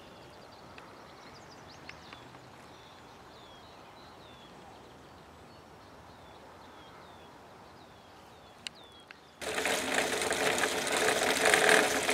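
Quiet open-air background with a small bird repeating a short, high, down-slurred chirp about twice a second. About nine seconds in this gives way abruptly to a much louder, dense, rapid rattling noise.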